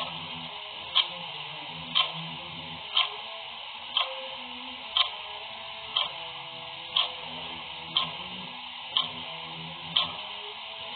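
Clock ticking steadily, one tick a second, over a constant background hiss.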